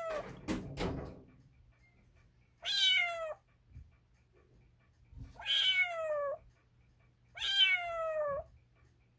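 Calico kitten mewing: three high calls about two seconds apart, each under a second long and falling in pitch, after the tail of another mew and a few knocks near the start.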